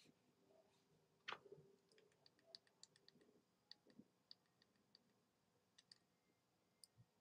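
Near silence with faint scattered clicks of small buttons being pressed, a quick run of them about two to three and a half seconds in.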